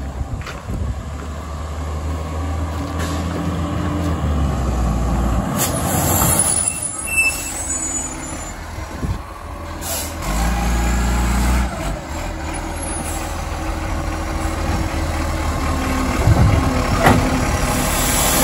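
Garbage truck's diesel engine running, revving up twice, with short hisses of its air brakes.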